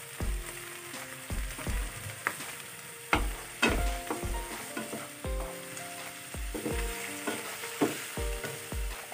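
Wooden spatula stirring chopped onion, garlic and spring onion in a hot non-stick frying pan: irregular knocks and scrapes against the pan over a light sizzle of oil.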